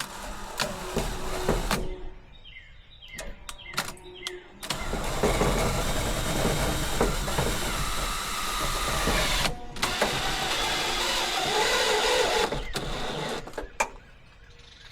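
Power drill running in long runs of several seconds, briefly released near the middle, driving screws to mount a meter box, with clicks and knocks of handling before and after.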